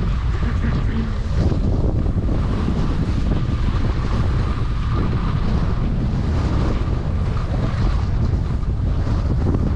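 Wind rushing over the camera microphone of a skier moving downhill, with the steady hiss of skis sliding on snow.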